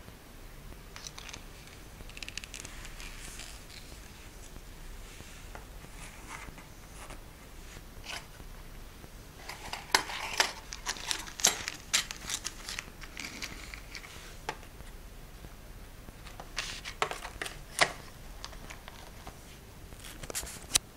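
Handling sounds of a Smith & Wesson 625 revolver being laid in its foam-lined plastic case: scattered clicks, taps and soft rustles, with a busy run of sharp clicks about ten seconds in and another cluster a little past halfway to the end.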